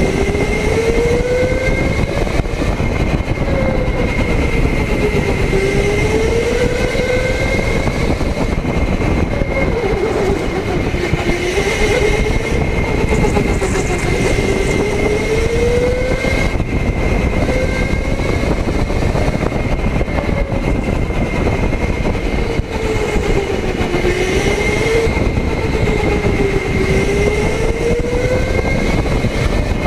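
Electric go-kart driven hard around a track, heard up close at the fender. The motor whine rises and falls every few seconds as the kart speeds up and slows for corners, over a loud steady rumble of tyres and chassis and a constant high tone.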